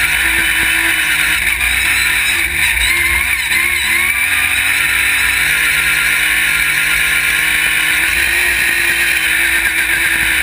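Off-road race buggy's engine running hard at speed, its pitch rising and falling several times with the throttle, over a constant rumble and hiss of wind and rough ground.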